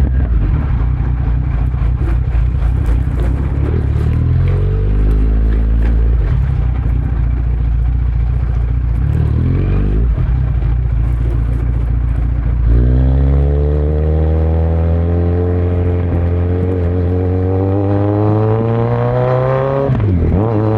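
Kawasaki Z900's inline-four running through an open Yoshimura muffler and Delkevic headers with no dB killer, ridden at low, fairly steady revs for the first half. About halfway through it accelerates, the pitch climbing steadily for several seconds, then drops sharply and picks up again near the end as it shifts up a gear.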